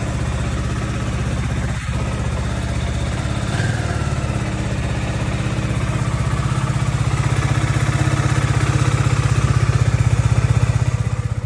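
KYMCO Spade 150i's single-cylinder engine running at idle after the new OEM ignition has been fitted, with a small rise in revs about three and a half seconds in, getting gradually louder toward the end.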